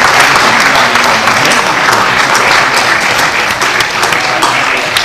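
Audience applauding steadily, a dense, continuous clapping from a full hall.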